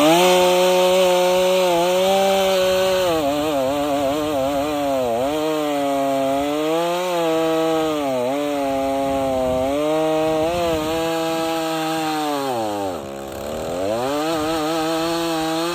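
Stihl chainsaw cutting firewood at full throttle, its engine pitch sagging and recovering each time the chain bogs into the wood. About thirteen seconds in it drops briefly toward idle, then revs back up and cuts again.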